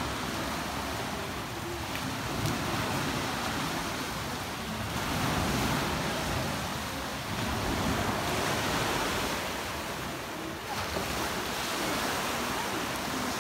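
Small waves washing onto a sandy beach in slow surges about every three seconds.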